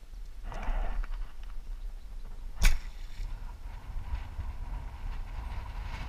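Compound bowfishing bow fired: a single sharp, loud snap of the string and cams on release, over low wind rumble on the microphone. A brief rustle comes shortly before the shot.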